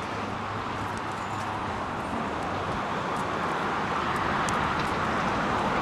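Heavy-equipment diesel engine running with a steady low hum and a rushing rumble that grows slowly louder.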